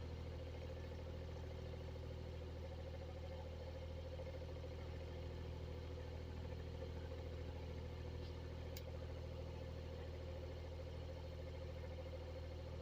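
Exhaust fan running steadily: a constant motor hum with a low drone and a higher whirring tone. A small tick about nine seconds in.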